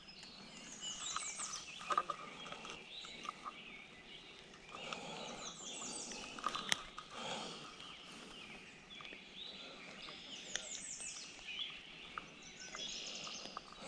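Songbirds singing: short phrases of quick, high, falling notes that come back every few seconds over a faint outdoor hiss, with a few small sharp clicks and rustles mixed in.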